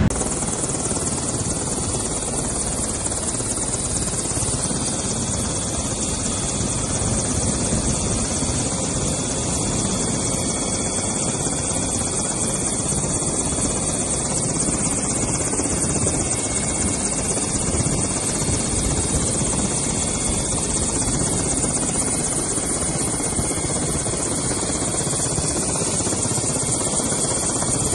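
Helicopter rotor and engine running, a steady noise that holds at one level.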